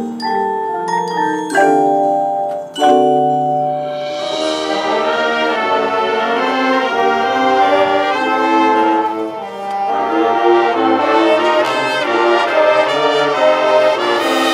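High school marching band playing: the front ensemble's mallet percussion (marimba and glockenspiel) plays alone at first, then the brass section comes in about four seconds in and the full band plays together.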